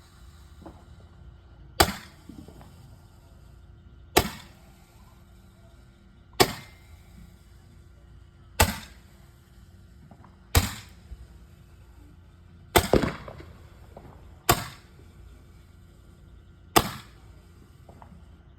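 Roman candle firing: sharp pops at an even pace of about one every two seconds, eight shots in all, one of them doubled.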